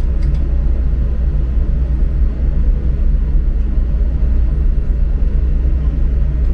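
Steady low drone of a ship's machinery running underway, a constant deep hum with no change in pitch.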